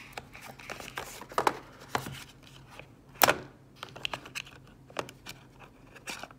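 A plastic Dash wall charger being lifted out of its cardboard box tray by hand: scattered light clicks, scrapes and rustling of the packaging, with one sharp knock a little over three seconds in.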